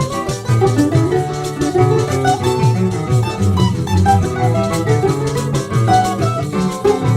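Brazilian bandolim (mandolin) playing a quick corridinho melody over plucked-string accompaniment with a walking bass line, and light percussion keeping a steady beat.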